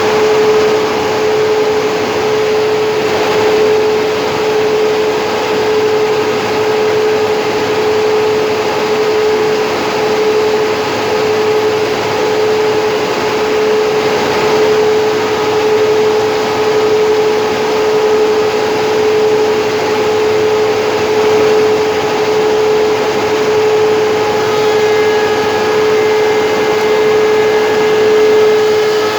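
Quadro 420BIG beam-profiling machine running: a loud, steady machine noise with a constant whine, a few higher tones joining near the end.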